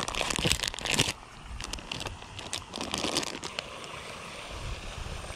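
Plastic soft-bait bag crinkling and tearing as it is pulled open by hand, loudest in the first second, then lighter crinkling as the bag and baits are handled for a few more seconds.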